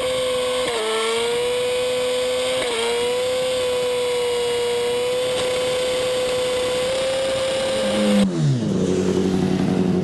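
Motorcycle engine running at a steady high speed with a few brief dips in pitch. About eight seconds in, the sound changes abruptly to an engine note that falls sharply in pitch as it slows, then holds low.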